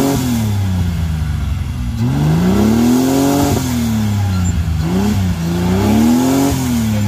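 Modified off-road 4x4's engine revving under load as it crawls up a steep dirt mound. The revs fall away at the start, then climb and drop back twice, peaking about three seconds in and again near the end.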